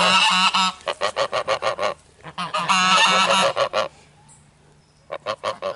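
Domestic geese honking close by: a long honk, a quick run of short honks, another long honk, then a lull before a fresh run of short honks near the end.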